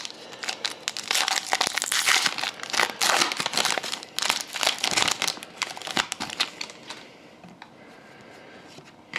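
Trading-card pack wrapper crinkling and tearing as a pack is ripped open, dense crackly rustling for about seven seconds that then dies down.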